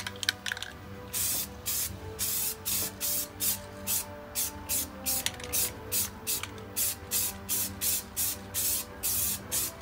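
Aerosol can of red oxide rust primer spraying in short, quick bursts, about three or four a second, starting about a second in, with a few light clicks just before.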